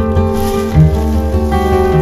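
Background music led by an acoustic guitar, with changing notes over a steady bass.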